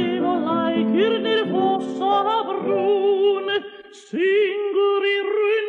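A song in an operatic style, with a singer's voice wavering in strong vibrato over an accompaniment. A little past halfway there is a brief break, then the voice comes back with a scoop up into a long held note.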